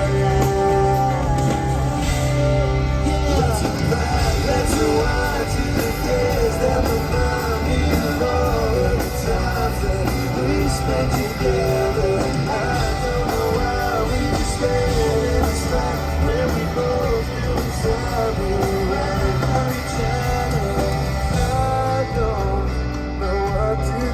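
Pop-punk band playing live at full volume, with electric guitars, bass and drums and a voice singing over them.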